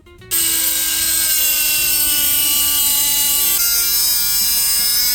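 Handheld electric power tool switched on and running at high speed with a steady whine over a hiss, its pitch dropping slightly a little past halfway.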